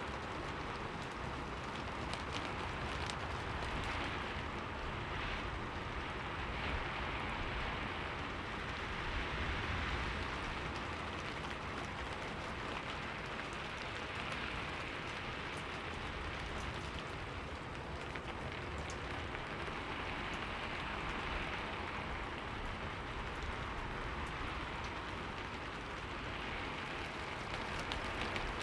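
Steady rain falling on a window, an even hiss of drops with gentle swells in intensity.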